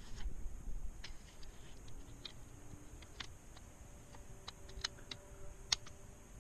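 Light, scattered clicks and ticks of a plastic laptop cooling fan housing being handled and pressed back into place over the heatsink, about a dozen small clicks at irregular intervals.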